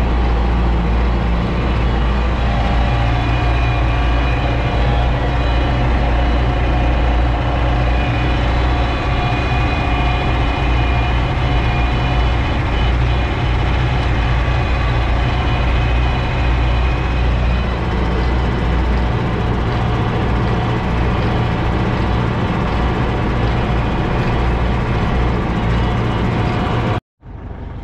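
MB Trac tractor's diesel engine running steadily under load while towing a manure spreader. The sound stops suddenly near the end.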